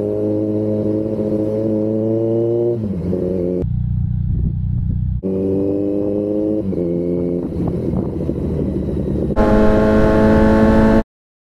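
Kawasaki Z900's inline-four engine running under way, its note climbing gently and dropping back a few times, with road and wind rumble underneath. The sound cuts out for about a second near the end.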